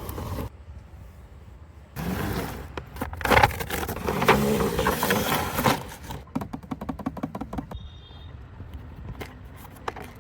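Handling noise from the toy's box and packaging: a few seconds of loud scraping and rustling, then a quick run of sharp clicks and ticks.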